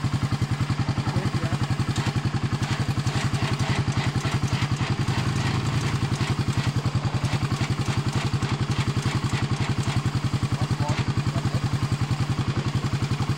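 ATV engine idling steadily close by, with an even, rapid pulsing exhaust beat.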